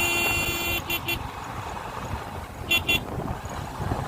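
Vehicle horn honking: one long blast, then two short toots, and two more short toots a couple of seconds later, over a steady low road rumble.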